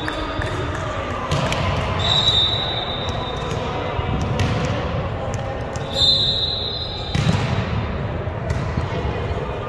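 Volleyball game in a gym hall: ball strikes and thuds echoing over a bed of players' and spectators' voices, with two high, steady tones about a second long, around two and six seconds in.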